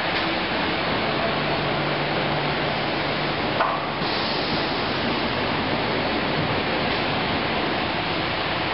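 Steady, even machinery noise from an automated woodworking production line's conveyors, with a single short knock about three and a half seconds in.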